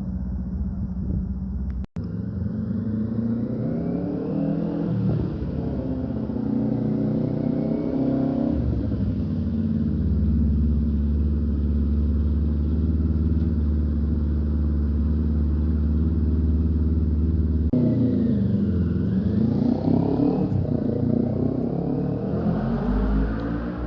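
Car engine revving and accelerating. Its note climbs, holds steady for several seconds, then dips and rises again near the end. The sound cuts out for an instant about two seconds in.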